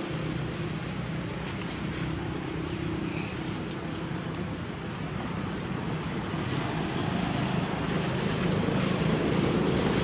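Steady outdoor background noise: a constant high buzz over a low rumble that grows a little louder near the end, with no distinct events.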